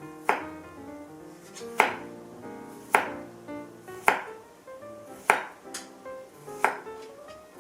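Kitchen knife coming down on a cutting board in slow single cuts, six sharp knocks about a second apart, over background music with held notes.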